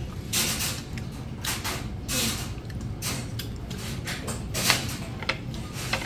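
Restaurant dining-room background: a steady low hum with scattered short clatters and rustles, one sharper knock a little before the end.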